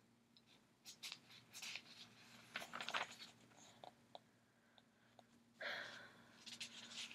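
Faint paper rustles and soft page flicks as the pages of an anthology are leafed through, coming in a few short scattered bursts.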